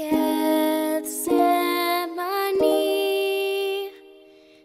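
Slow, soft music of long held notes with wordless singing, in a gentle lullaby-like arrangement. It breaks briefly about a second in and dies away near the end.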